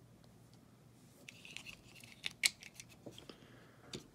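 Small plastic action-figure parts clicking and rattling as they are handled and fitted: a quick run of sharp little clicks in the middle, the loudest about two and a half seconds in, and one more near the end.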